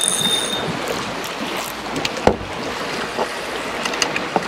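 Wind and sea noise around a small boat at sea, steady throughout, with a single knock about two seconds in and a few light clicks near the end.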